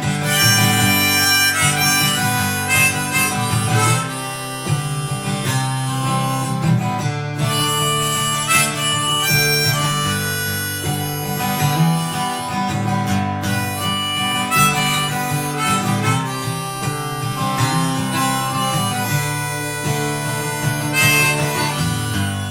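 Harmonica solo over strummed acoustic guitar: an instrumental break in a folk song, with held and bending notes and no singing.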